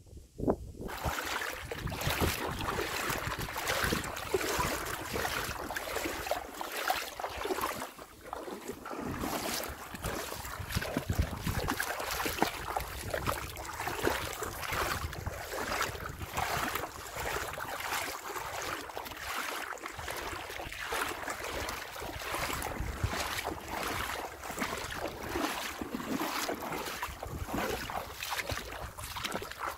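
Water splashing with the strokes of a kayak paddle as an inflatable kayak moves along, over steady wind noise on the microphone.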